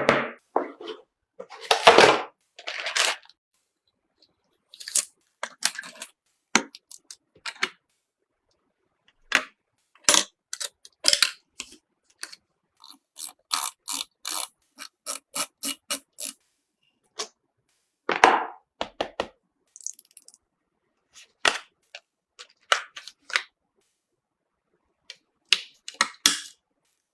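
Scattered clicks, taps and short scrapes of computer parts being handled and fitted together, with a quick run of evenly spaced clicks, two or three a second, near the middle.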